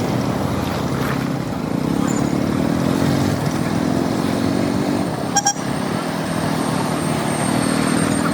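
KTM 200 Duke's single-cylinder engine running under way, its pitch rising and falling with the throttle. About five and a half seconds in, a vehicle horn gives two short beeps.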